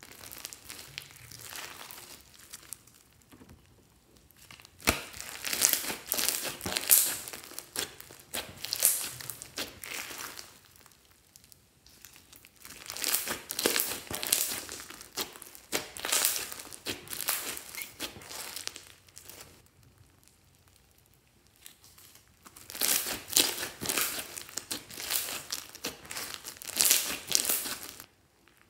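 Hands kneading, squeezing and stretching glossy slime full of small foam beads: wet squishing with dense crackling and popping, in three stretches of several seconds each with quieter pauses between.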